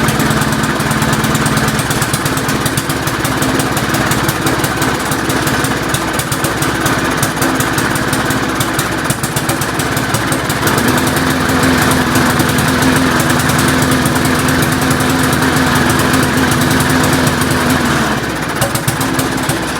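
Rally 3.5 hp push lawnmower's small engine running steadily just after a pull start. Its note shifts about halfway through and eases off near the end.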